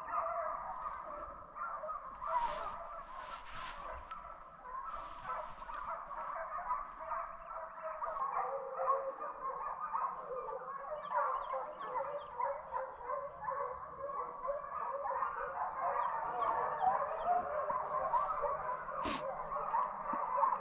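Deer hounds baying on the trail of a deer, many overlapping calls in a steady chorus that grows a little louder about eight seconds in. The hounds are running the deer back toward the hunter.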